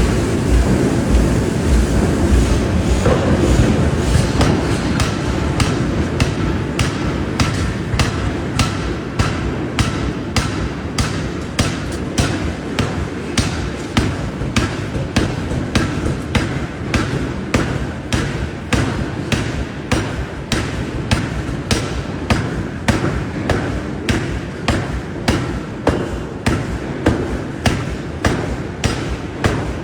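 Forging hammer striking hot steel in a steady rhythm, about two blows a second, over a low industrial rumble.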